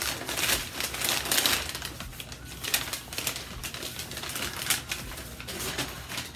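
Packing paper crinkling and rustling as it is pulled apart and unwrapped by hand, in irregular bursts.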